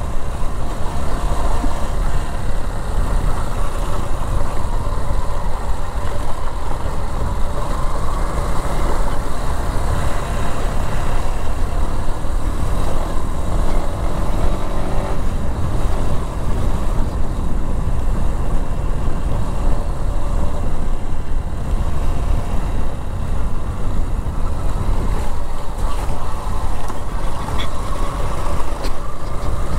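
Yamaha XTZ 150's single-cylinder engine running steadily while the motorcycle is ridden, under a constant deep rumble.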